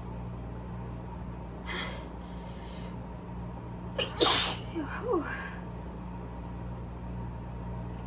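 A woman's allergy sneeze: an audible intake of breath about two seconds in, then one loud sneeze about four seconds in, followed by a few short voiced sounds as she recovers.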